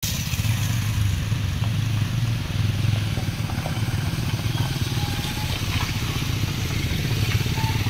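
Toyota Fortuner SUV and motorcycles running at low speed on a dirt track: a steady, low engine rumble as the SUV passes close by.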